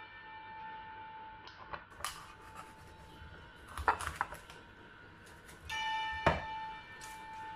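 A kitchen knife cuts through a whole grilled chicken and knocks against the wooden chopping board a few times, loudest about four and six seconds in. Underneath, a sustained bell-like musical note fades, then sounds again about six seconds in.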